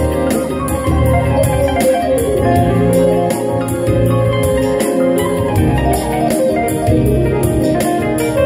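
Live funk instrumental on a Yamaha Tyros 4 arranger keyboard and an electric bağlama, the keyboard's notes and plucked saz lines over a steady, even beat.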